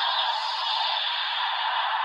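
A steady, even hiss-like sound effect with no clear pitch, holding at one level throughout.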